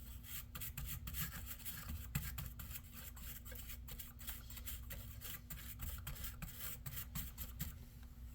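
Brush bristles scrubbing dust out of a laptop's fans and vents: a rapid, irregular run of scratchy strokes that stops near the end.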